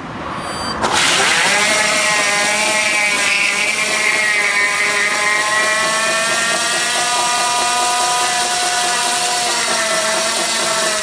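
Electric motorcycle doing a burnout: the rear tyre spins on wet concrete and gives a loud, steady screech, building up over the first second. Its pitch rises slightly a few seconds in, then holds.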